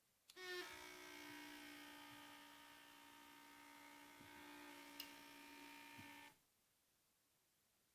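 Small vibration motor of a wireless anti-supine positional sensor buzzing steadily for about six seconds, then cutting off suddenly. This is its vibrating alert that the wearer is lying face-up on their back.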